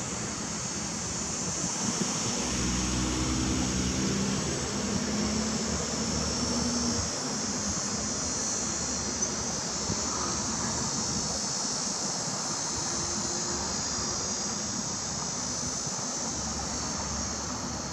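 Steady high-pitched insect buzzing, with a car's engine running low and passing from about two to seven seconds in.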